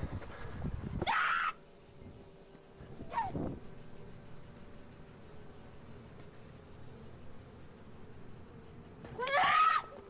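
Cicadas droning in a steady, evenly pulsing high buzz. A short loud cry cuts in about a second in, and a woman screams briefly near the end.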